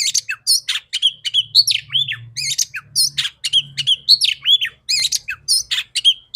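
Female oriental magpie-robin calling in a fast, unbroken run of short chirps and down-slurred whistles, several a second.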